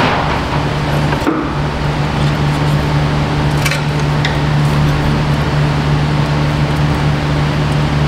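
A steady low mechanical hum over an even rush of air, with two light metal clinks near the middle as the front brake caliper is handled and hung up.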